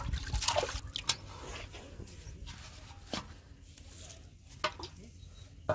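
Water splashing and sloshing in a pot as live fish are put in by hand and flap about, with a few short sharp splashes and knocks scattered through.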